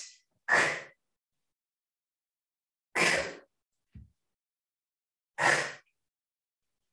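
A woman breathing out the qigong heart healing sound through her mouth: three short, breathy outbreaths about two and a half seconds apart. A faint soft knock falls between the second and third.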